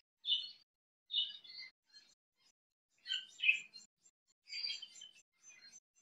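Budgerigar chirping: high-pitched chirps in about five short bursts, the loudest a little past the middle.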